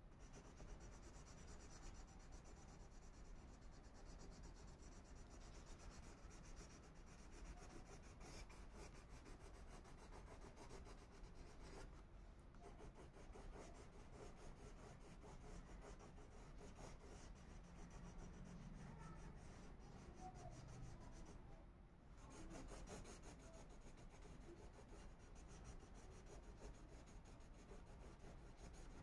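Crayon rubbed back and forth on paper in quick shading strokes: a faint, continuous scratching that pauses briefly twice.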